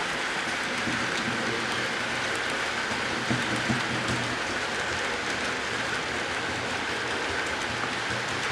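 HO scale model freight cars rolling along the track: a steady whirring hiss with a faint low hum underneath, and a couple of light clicks a little past three seconds in.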